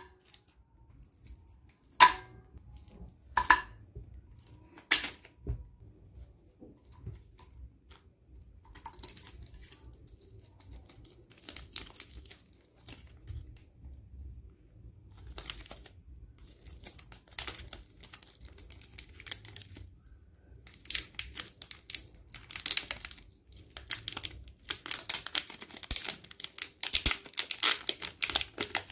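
Plastic chocolate-bar wrappers crinkling and tearing as they are handled and opened by hand. The rustling is sparse at first and becomes dense and loud over the last eight seconds or so, as a Cadbury Dairy Milk wrapper is torn open and its inner wrap peeled back. Three sharp clicks come in the first few seconds.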